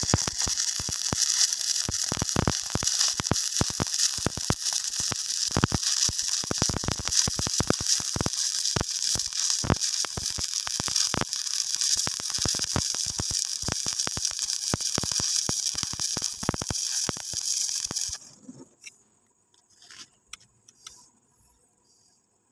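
Stick (shielded metal arc) welding arc crackling and hissing steadily with rapid pops. It cuts off suddenly about 18 seconds in as the arc is broken, leaving only a few faint clicks.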